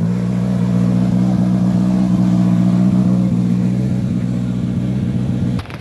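A car engine running loudly at steady, unchanging revs, stopping abruptly near the end.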